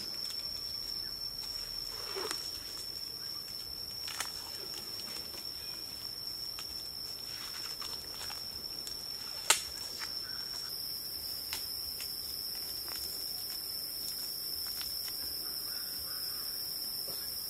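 A steady, high-pitched insect drone holding one continuous tone, with a few faint clicks and rustles of handling over it. One sharp click about halfway through is the loudest sound.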